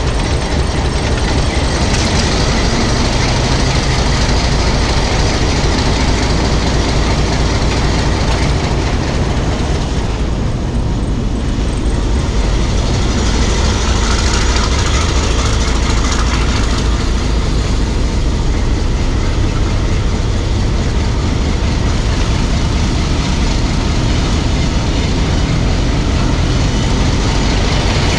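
Hitachi-built 2,000 hp diesel locomotive heard from inside its cab: a loud, steady engine drone over the rumble of the train running on the track.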